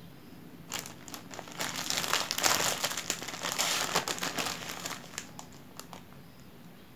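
Thin plastic bag crinkling as a hand rummages inside it to pull out strands of sai mai, Thai spun-sugar cotton candy. The crinkling builds about a second in, is loudest for roughly three seconds in the middle, then gives way to a few light clicks.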